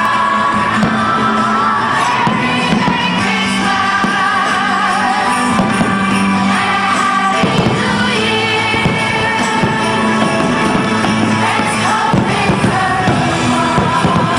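A song with singing vocals, played at a steady level.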